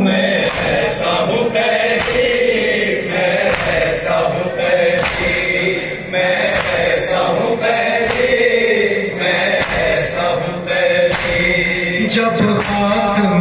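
A noha, a mourning lament for Imam Sajjad, is sung in Urdu by an amplified male reciter, with a crowd of men chanting along. Under the singing runs a steady, even beat of sharp chest-beating slaps (matam), about three every two seconds.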